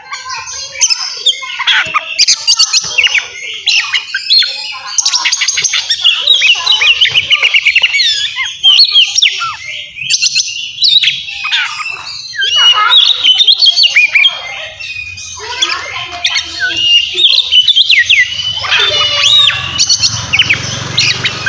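An Oriental magpie-robin (kacer) singing loudly and without pause. Its song is a fast, varied run of whistles, rapid trills and sharp chattering notes, packed with imitations of other birds. This is the aggressive, full-voiced 'ngeplong' song of a male in fighting mood.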